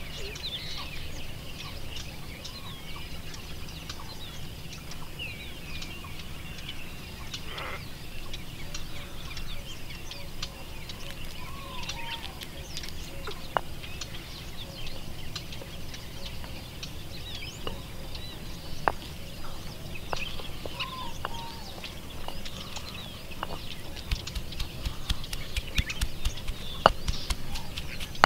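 Small birds chirping again and again, with hens clucking now and then, over a low steady rumble. A quick run of light taps starts near the end.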